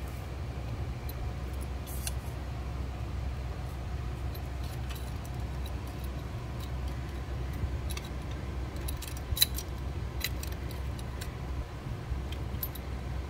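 Small metallic clicks and taps from the lamp-house parts and screws of a Bell & Howell Filmo projector as they are handled and lined up, with two sharper clicks about two-thirds of the way in, over a steady low hum.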